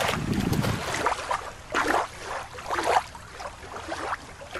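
Shallow river water lapping and splashing at the shore's edge in a few irregular splashes, around a small plastic toy just dropped in.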